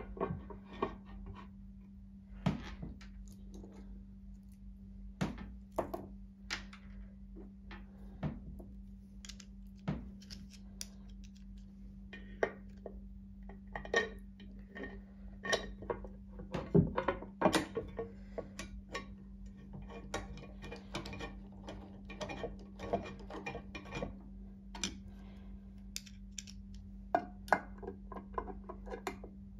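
Scattered clicks, taps and knocks of metal parts and a hand tool being handled on a Pfaff 1229 sewing machine during reassembly, over a steady low hum.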